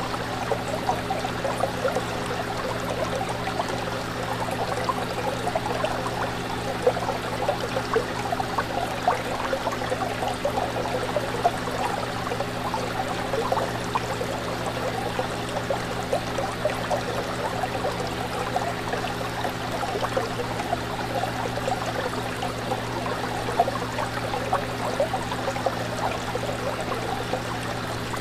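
Aquarium water bubbling and trickling steadily, with a constant low hum underneath.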